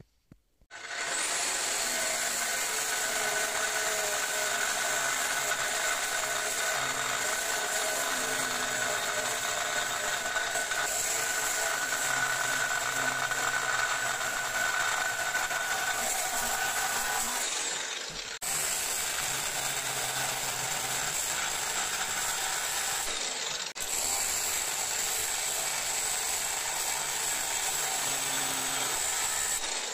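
Angle grinder with an abrasive cut-off disc cutting through the outer race of a large steel bearing: a steady high whine of disc on metal that starts about a second in and dips briefly twice in the second half.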